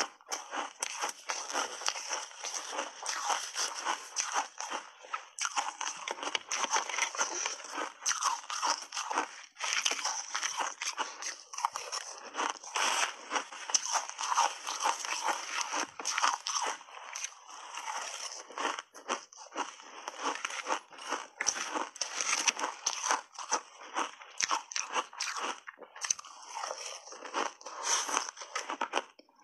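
Close-miked crunching and chewing of frozen mixed-berry ice dusted with matcha powder: a dense, steady run of crackly bites and cracks.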